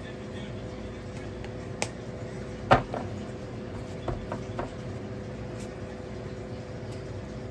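Kitchen handling sounds while a stuffed dough ball is shaped and dipped in flour: a single sharp knock a little under three seconds in, then three light knocks about a second and a half later, over a steady low hum.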